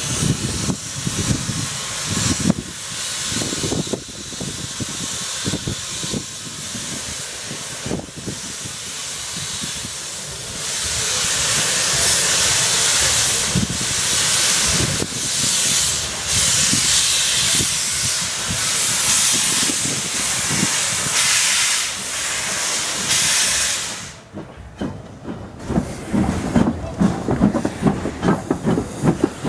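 Ivatt Class 2 2-6-2 tank locomotive moving off at low speed, steam hissing loudly and steadily from its open cylinder drain cocks. Near the end the hiss cuts off suddenly, leaving a quick rhythmic beat of the engine working.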